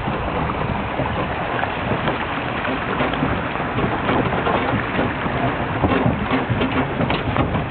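Horse-drawn carriage rolling along a snow-covered track: a steady rumble and rattle from the moving carriage, with many small scattered knocks.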